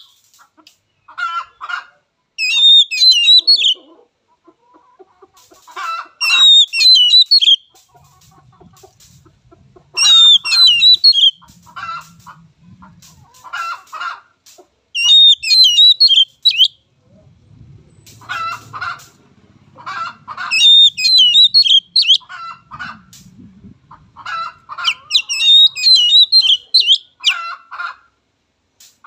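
Oriental magpie-robin singing loudly: a burst of varied, twisting whistled notes about every three to four seconds, with shorter, rougher chattering notes in between.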